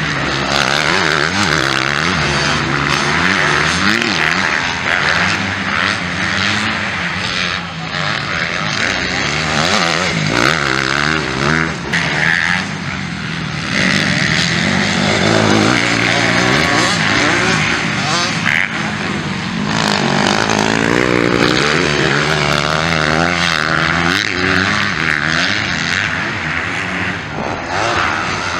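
Several 250cc motocross bikes racing, their engines revving up and falling back again and again as they accelerate out of corners and shift gears.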